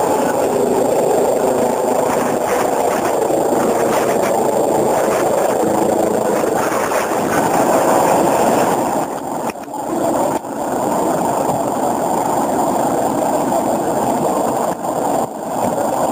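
Emergency medical helicopter's rotor and turbine running, a loud steady noise with a few brief dips in loudness.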